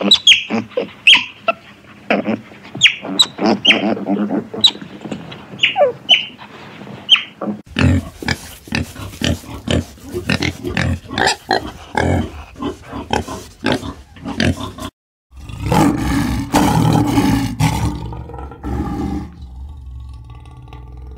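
Otters chirping with rapid high squeaks for the first seven seconds or so. Then wild boar give a quick run of short grunts. After a brief break, a male lion roars low and loud, fading near the end.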